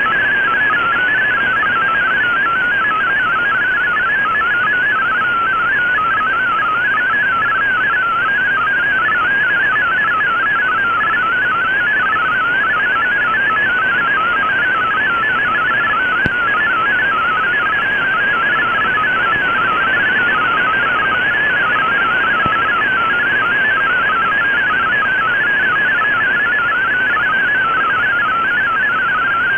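MFSK32 digital data signal received on shortwave through an Icom IC-R8600: a fast, warbling stream of single tones hopping rapidly in pitch, over steady band hiss. The signal is strong and is being decoded as text.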